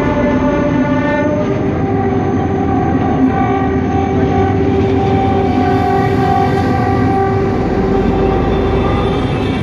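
Train's horn sounding a long sustained chord over the running rumble of the moving train, its pitch shifting to a new chord about a second and a half in.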